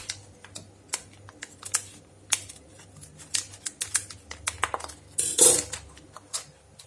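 Foil seed packet being handled and snipped open with scissors: a run of small crinkles and blade clicks, with a louder crisp rustle about five seconds in.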